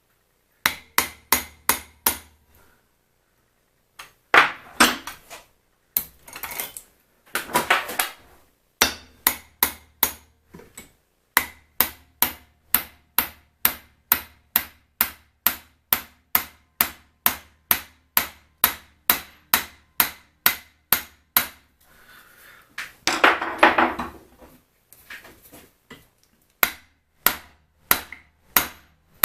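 Hammer blows driving a pin into a vise, struck steadily about twice a second in runs with short pauses. A few longer, rougher sounds come between the runs.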